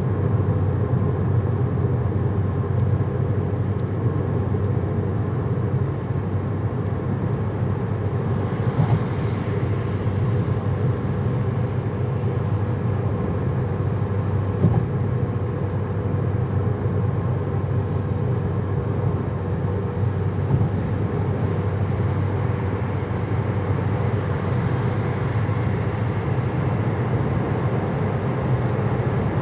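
Steady drone of road and engine noise heard from inside a car's cabin as it cruises at motorway speed, mostly low in pitch.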